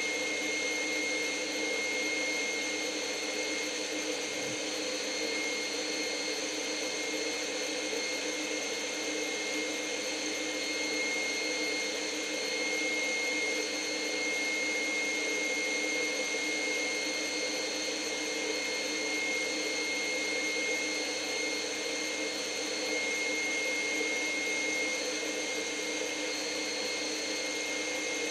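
Electric stand mixer running at a steady speed, beating hollandaise sauce in a stainless-steel bowl, with a constant motor hum and a high whine. The hot butter is being beaten into the egg yolks to emulsify the sauce.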